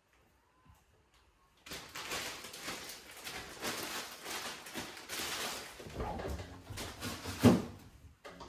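Plastic zip-top bag of vegetable scraps crinkling and rustling for several seconds as it is handled and sealed. Then come low thumps, loudest near the end, as the refrigerator door is opened.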